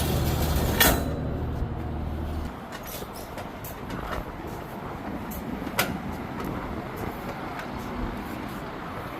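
Vehicle engine running with a low steady hum that cuts out about two and a half seconds in, leaving quieter background noise with a few light clicks.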